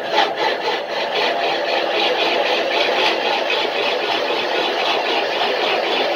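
A 1960s jig boring machine running, its spindle working a truck wheel hub, giving a steady mechanical noise with a fast, even rattle. It comes in abruptly at the start and then holds level.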